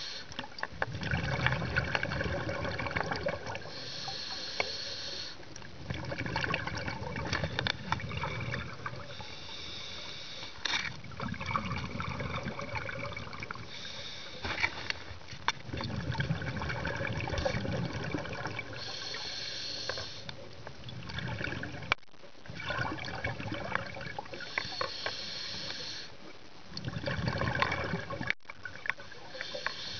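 Scuba diver breathing through a regulator, heard underwater: a short hiss of inhaled air every five seconds or so, each followed by a low, bubbling rush of exhaled bubbles.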